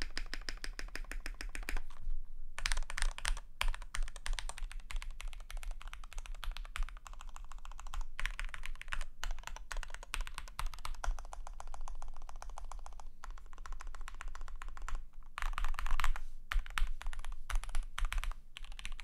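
Typing on a KBD75 v3.1 custom mechanical keyboard with lubed Gateron X linear switches, a polycarbonate plate and PBT keycaps: a fast, continuous stream of key clacks with a short pause about two seconds in.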